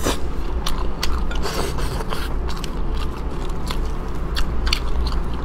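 Close-up chewing of tender braised chicken, with irregular wet clicks and lip smacks.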